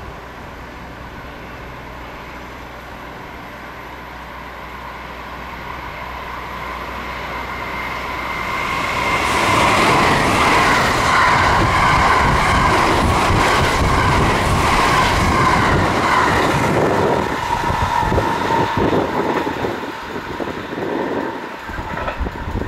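JR West limited-express electric train approaching and passing at speed: a rumble that builds over several seconds into a loud rush with a steady whine and wheel noise. After about seventeen seconds it turns into gusty wind buffeting the microphone in the train's wake.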